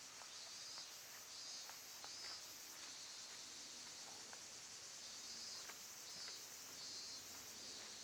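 Faint chorus of insects: a steady high buzzing with chirps pulsing on and off about every half second, and a few faint scattered ticks.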